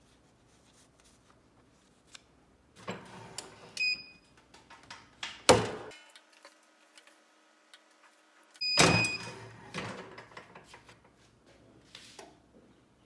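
Clamshell heat press being worked: handling noise and a short electronic beep, then the lid clamped down with a loud clunk about five and a half seconds in. Near nine seconds the press beeps again and the lid is released with another loud clunk, followed by light rustling of transfer paper.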